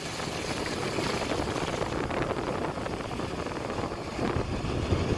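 Steady low rumble of a running car or truck, heard from inside the vehicle.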